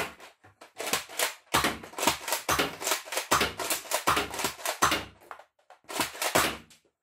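Zuru X-Shot Regenerator foam-dart blaster firing with a sharp plastic snap right at the start, followed by several seconds of fast plastic clicking and clattering as the blaster's mechanism is worked.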